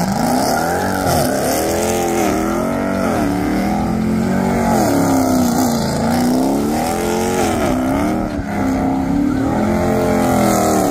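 Car engine revving up and down again and again, its pitch rising and falling every second or so, as the car spins donuts, with tire noise and squeal throughout.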